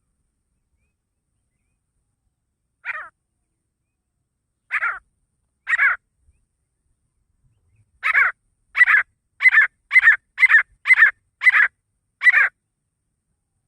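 Male grey francolin (desi teetar) calling: three single notes spaced a second or two apart, then a quicker run of eight loud notes about two a second.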